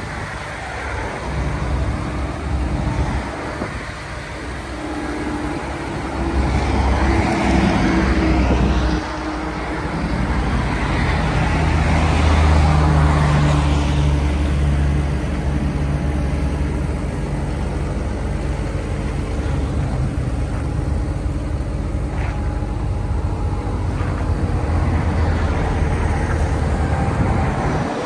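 Caterpillar 320D L excavator's diesel engine running, its sound swelling at about six seconds and again from about eleven to fourteen seconds.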